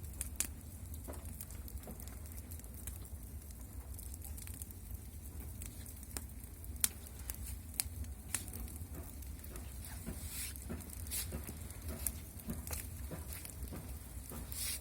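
Wood fire crackling, with irregular sharp pops and snaps scattered through the whole stretch.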